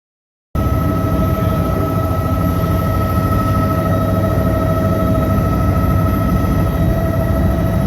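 Sightseeing helicopter in flight heard from inside the cabin: loud, steady engine and rotor noise with a constant whine, starting suddenly about half a second in.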